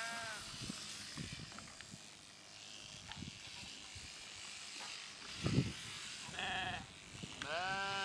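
Sheep bleating three times: once at the start and twice near the end, the last call the longest. Underneath is the steady buzz of electric sheep shears, and a dull low thump comes a little past halfway.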